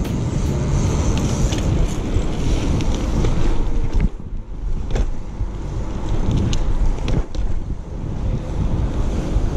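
Wind rushing over the microphone of a camera riding along on a BMX bike, over the steady rumble of tyres rolling on asphalt, with a few light clicks and knocks.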